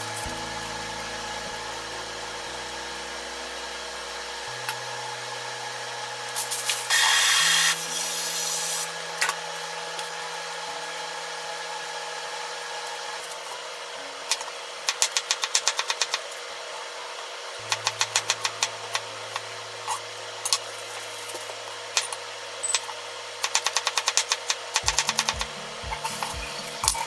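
A kitchen knife chopping garlic on a mango-wood cutting board in quick runs of sharp strokes, over soft background music with long held notes. A brief, loud rustle about a quarter of the way in is the loudest sound.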